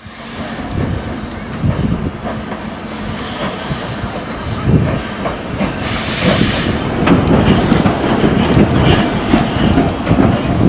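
LNER B12 steam locomotive moving slowly under steam, with uneven exhaust beats, steam hiss and the clatter of wheels on rail, growing louder. A burst of hiss comes about six seconds in.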